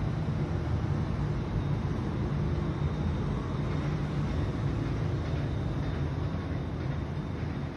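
Steady low rumble of distant city traffic, with no distinct events.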